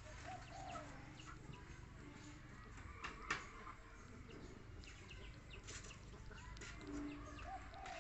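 Faint short animal calls, with scattered soft clicks and one sharper click about three seconds in.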